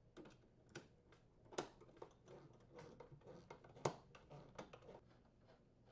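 Faint, irregular clicks and ticks of a screwdriver turning the screws that fasten a new oven door hinge into the sheet-metal door panel, with a louder click about a second and a half in and another near four seconds.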